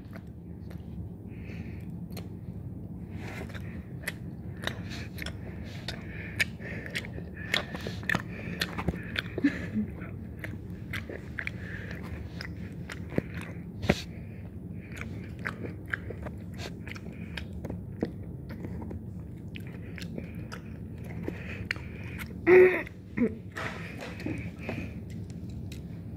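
A person chewing chocolate close to the microphone, with many small sharp clicks from the mouth throughout. A brief louder sound breaks in about three-quarters of the way through.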